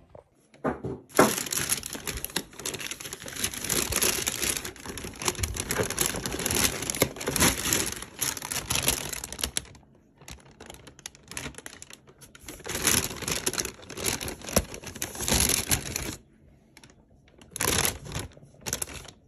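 Paper bag and cardboard box of fried chicken rustling and crinkling as they are handled, full of small crackles, in stretches broken by two short pauses.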